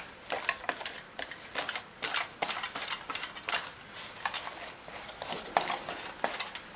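Irregular light clicks and taps of hair-colouring tools being handled while bleach is applied to a wig: a tint brush, a bleach bowl and foil. The taps come in quick clusters.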